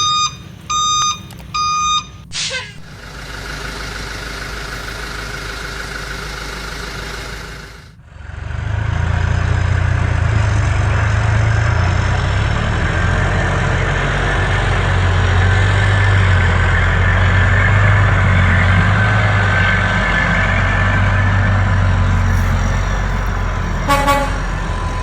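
Truck sound effects: reversing beeps repeating about twice a second for the first two seconds, then, after a quieter stretch, a loud steady low diesel-truck engine rumble from about eight seconds on, with a brief burst of beeping near the end.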